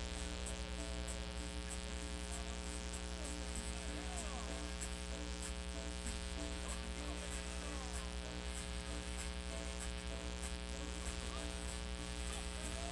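Steady electrical mains hum, a constant low buzz with many overtones, with faint distant voices beneath it.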